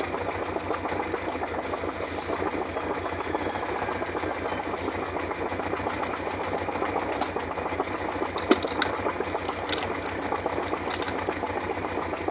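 An engine running steadily at idle, with a fast, even pulse. A single sharp clank comes about eight and a half seconds in.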